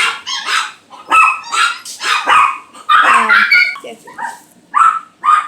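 A person's voice imitating a cat with a run of short, loud cat-like calls, about two a second.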